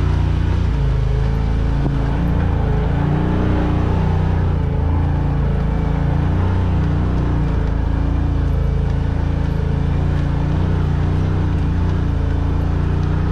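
Off-road vehicle's engine running steadily at low speed as it crawls over slickrock, its pitch wavering up and down.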